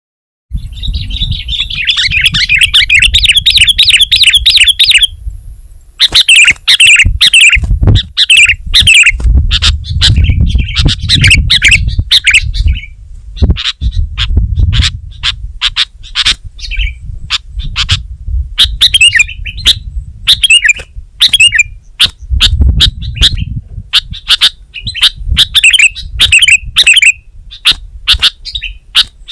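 Sooty-headed bulbul (kutilang) singing loudly. A fast chattering run of notes for the first few seconds gives way to repeated short, sharp calls and quick bubbly phrases, over a low rumble.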